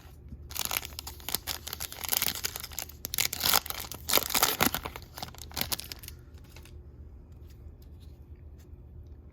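A trading card pack wrapper being torn open and crinkled by hand, a run of rustling tears lasting about five seconds, then only faint handling of the cards.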